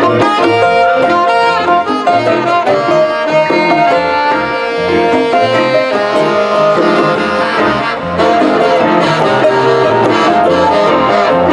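Live band playing an instrumental passage: saxophone lines over electric and acoustic guitars, bass guitar and a drum kit with a steady beat.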